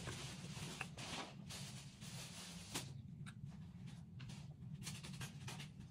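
Quiet, soft wet mouth sounds of a baby eating soft fruit with her fingers in her mouth: small smacks and clicks over a low steady room hum.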